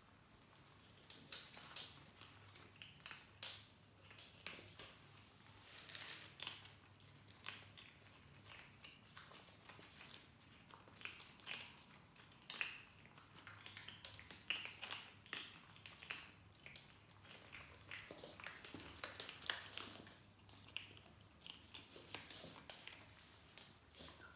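Young kittens crunching dry kibble from a tray: faint, irregular crunches and clicks.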